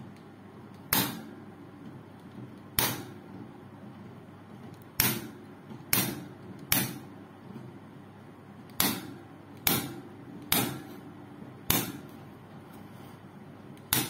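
Pliers-type wire cutters snipping through steel wire: about ten sharp, separate snaps at uneven intervals, one every second or two.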